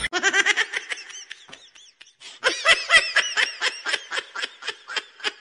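A person laughing in quick, repeated ha-ha pulses: a bout of about a second and a half, a short pause, then a longer bout of about three seconds.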